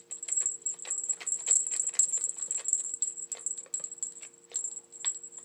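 Thin cleaning rod clicking and rattling against a paintball gun's barrel and body as it is pushed and jiggled inside to dislodge a broken paintball stuck in the barrel: irregular light clicks, several a second.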